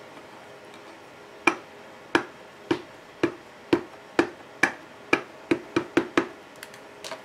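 An ink pad tapped repeatedly against a clear acrylic-mounted stamp to ink it: about a dozen sharp light taps, roughly two a second, starting about a second and a half in.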